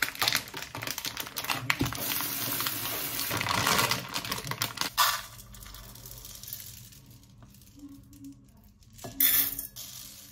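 Dry brown rice grains pouring and rattling into plastic containers: a dense, steady pour for about five seconds, then quieter, with a short burst of pouring near the end as rice is tipped into a plastic measuring cup.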